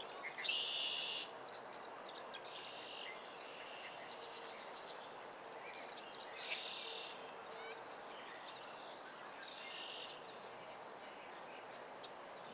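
A small wild bird giving short, high trills, repeated four times about three seconds apart, over steady outdoor background noise.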